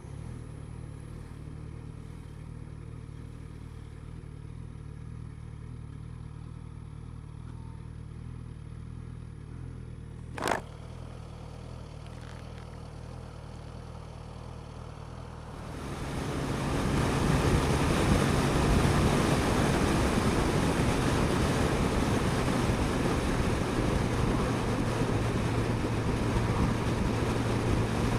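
Suzuki GSX-S1000GT's inline-four engine running steadily at low speed, with a single sharp click about ten seconds in. About sixteen seconds in the bike speeds up, and the engine note and rushing wind noise grow louder and stay up.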